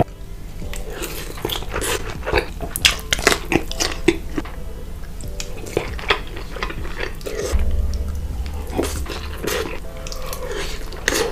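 Close-miked eating sounds of lasagne: wet chewing, slurping and biting, with many short mouth smacks and clicks.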